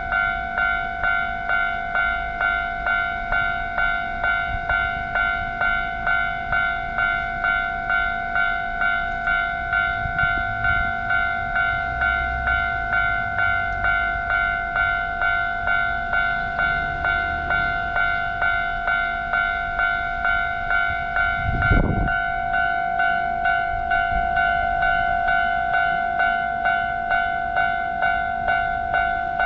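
Japanese railway level-crossing alarm bell ringing steadily, an evenly repeating clang at nearly two strikes a second, while a train rumbles past through the middle. A brief loud sound breaks in about three-quarters of the way through.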